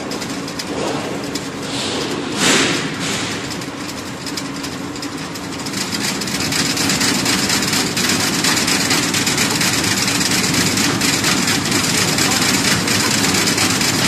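Chin chin dough cutting machine running, its motor, rollers and cutters making a steady mechanical noise over a low hum as dough strips are chopped into small pieces. The noise swells briefly about two and a half seconds in and grows louder about six seconds in.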